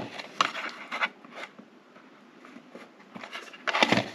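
Plastic cassette cases being handled against each other: scattered light clicks, rubs and scrapes, with a louder cluster of clicks near the end.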